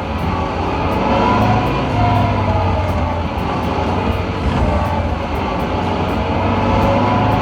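Engine sound effect of a truck running steadily with a low hum, over background music with a light steady beat.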